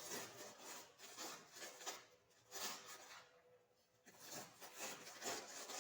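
Faint, irregular rustling and rubbing noises in three stretches, with short lulls about two seconds and three and a half seconds in.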